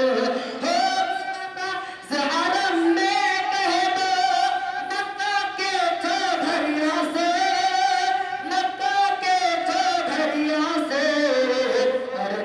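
A solo voice singing a naat, a devotional poem in praise of the Prophet, drawing out long wavering notes with vibrato between verses.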